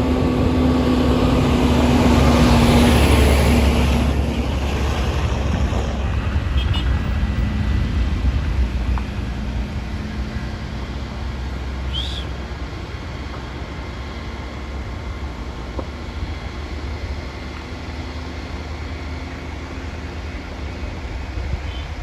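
A motor's rumble, swelling to its loudest about three seconds in as if passing close, then settling into a steadier, quieter drone.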